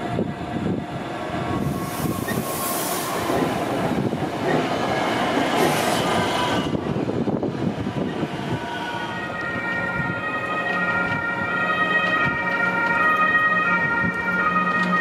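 A DB Regio electric multiple unit rolls in with rail and wheel noise and two short hisses. From about nine seconds in an ICE high-speed train moves off, and its traction converters give a steady electric whine that steps in pitch over a low hum.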